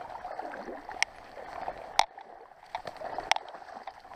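Someone wading through shallow marsh water and reeds, the water sloshing and gurgling around the legs with each step, with a few sharp clicks about a second apart.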